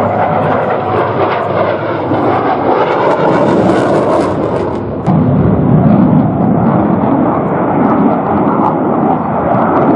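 USAF F-16 fighter's jet engine in afterburner during a close display pass: a loud, steady rush of jet noise whose low rumble grows stronger about halfway through.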